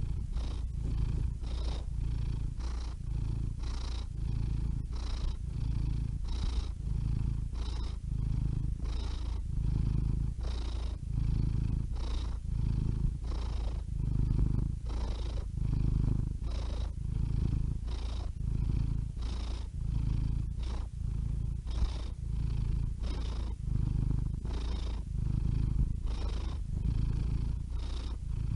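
Domestic cat purring steadily, the low rumble swelling and easing in an even rhythm about once a second as it breathes in and out.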